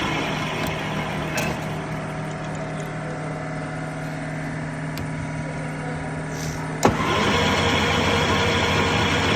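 Lathe motor and gearing running with a steady hum. About seven seconds in there is a sharp clunk, after which the machine picks up speed and runs louder.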